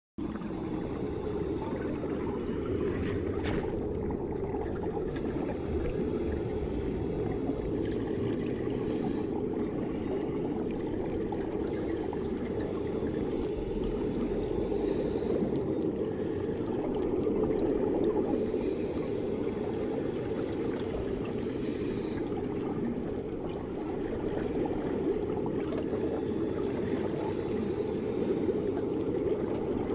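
Swimming pool ambience heard from under the water: a steady, muffled low wash of water noise, with little treble.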